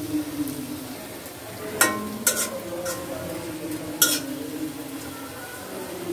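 Radish and carrot pakoras sizzling as they deep-fry in oil in a kadai, with a steel spatula stirring and turning them. The spatula clinks sharply against the pan about three times.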